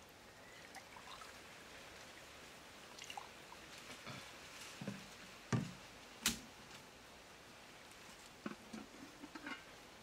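Water poured from a plastic jerrycan into a small container, with two sharp knocks a little past halfway and a few light clinks near the end.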